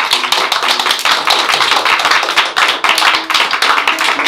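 Audience applause: many hands clapping in a dense, steady stream.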